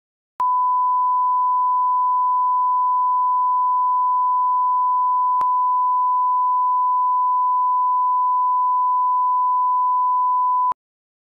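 A steady 1 kHz sine reference tone, the line-up tone that goes with colour bars. It starts about half a second in with a click, has another click about halfway through, and cuts off abruptly shortly before the end.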